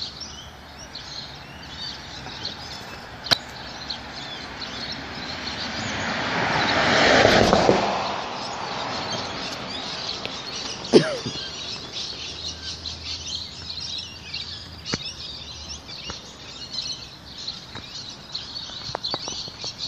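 Birds chirping, with a vehicle passing by whose road noise swells to a peak about seven seconds in and fades away. A single sudden sharp sound about eleven seconds in is the loudest moment.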